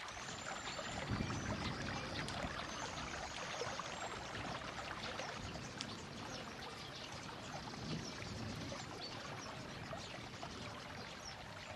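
Running water, a steady even rush with no pauses.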